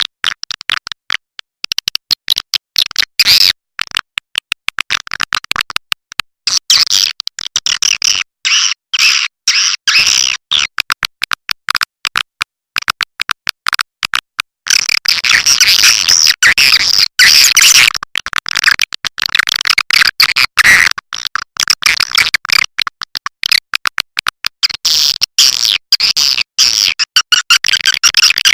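Recorded swiftlet lure call: a dense, rapid chirping and twittering of many swiftlets, the sound played to draw swiftlets into a nesting house. It is broken by many short gaps of dead silence and is louder and more continuous from about halfway through.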